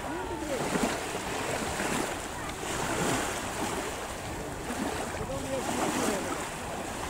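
Black Sea surf washing onto a sandy beach, rising and falling, with indistinct voices of people on the beach in the background.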